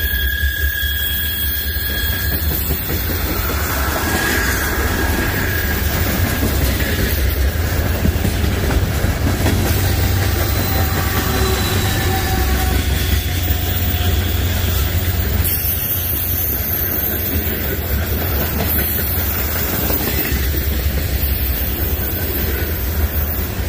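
Freight train rolling past: a steady, loud rumble of railcar wheels on the rails, with faint wheel squeals that come and go.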